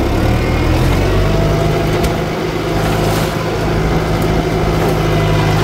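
Kubota tractor's diesel engine running steadily, its note stepping up slightly about a second in.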